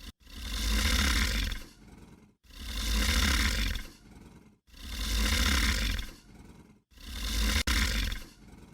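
A deep animal roar, repeated four times at even intervals of about two seconds, each roar trailing off into a quieter rasp.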